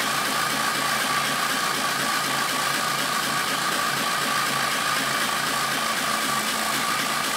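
Tractor engine running steadily, an even mechanical drone with no change in speed.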